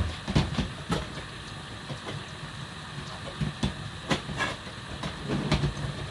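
Hot cooking water being poured off a pot into a kitchen sink: a steady hiss of running water and steam, with repeated knocks and clinks of the pot and utensils.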